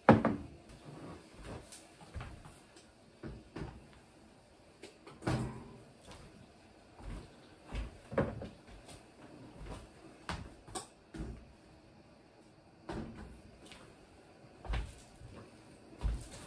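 Scattered knocks, clunks and clinks of filled glass canning jars being picked up, moved and set down on a kitchen counter, at uneven intervals. The loudest knock comes right at the start.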